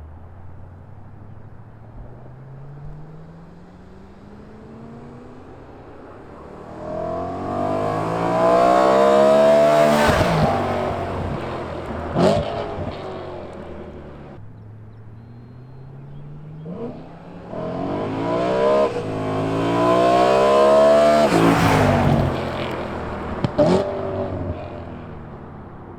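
BMW E92 M3's V8 accelerating hard past twice: the exhaust note climbs, then drops in pitch as the car goes by. Each pass ends in a couple of sharp cracks from the exhaust.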